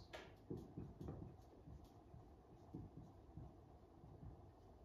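Faint strokes of a dry-erase marker writing on a whiteboard: a few short, soft scratches.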